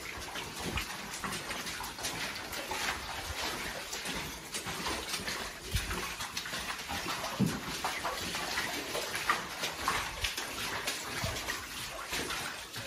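Boots splashing and sloshing through standing water on a mine floor, an uneven run of steps and splashes with occasional knocks.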